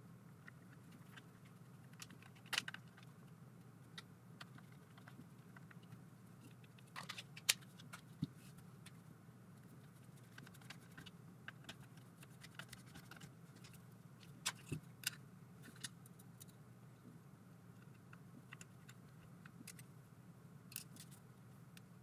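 Faint, scattered clicks and taps of small objects being handled, over a steady low hum.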